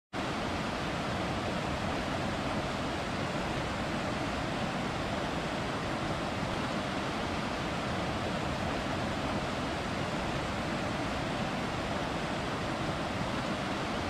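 Waterfall: a steady, even rush of falling water that starts abruptly.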